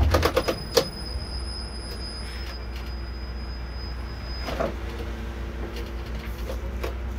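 Cabin sound of an Irisbus Récréo II coach: the engine runs with a steady low rumble, with a quick cluster of clicks and knocks in the first second and another knock about four and a half seconds in.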